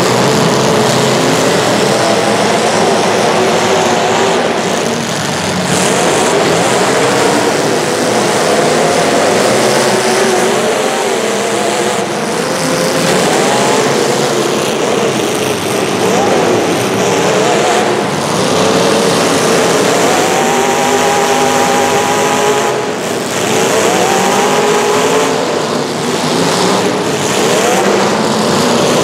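Several racing engines running together at full race pace, their pitch rising and falling as they rev and back off, with no let-up.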